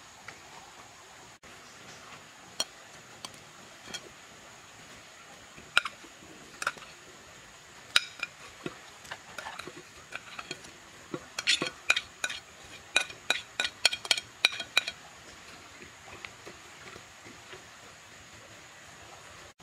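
A metal spoon clinking and scraping against a plate as chopped greens are pushed off it into a clay cooking pot: scattered sharp clicks, then a quick dense run of them about eleven seconds in that stops around fifteen seconds. A faint steady hiss runs underneath.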